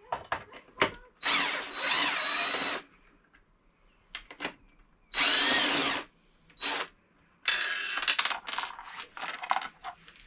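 Power drill-driver spinning in two bursts, the first about a second and a half long and the second shorter, backing out the bolts that hold a motorcycle's luggage plate. Sharp clicks come between the bursts, and metal clatter follows in the second half.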